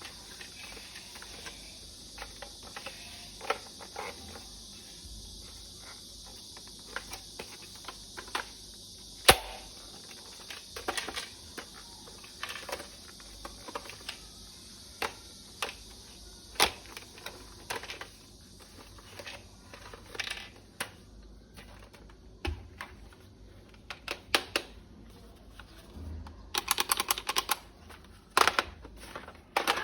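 Scattered sharp plastic clicks, taps and knocks from the toy assault rifle and its parts being handled, with one loud knock a little over nine seconds in and a quick rattling run of clicks about 27 seconds in. A steady faint high hiss sits underneath for most of the first twenty seconds.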